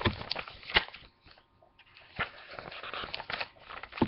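Book pages and covers being handled and leafed through while searching for a passage: short crinkly rustles with several sharp clicks and taps, the loudest near the start, just before a second in and right at the end.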